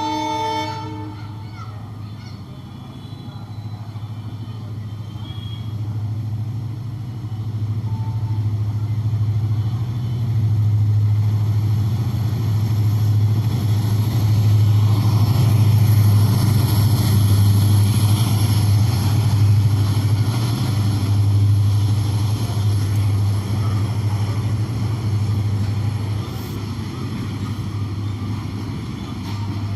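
WDG4 (EMD GT46MAC) diesel-electric locomotive with its EMD two-stroke diesel engine running, a deep steady hum. The hum swells louder through the middle and eases off near the end, with a thin high whine above it from about twelve seconds on. A locomotive horn cuts off about a second in.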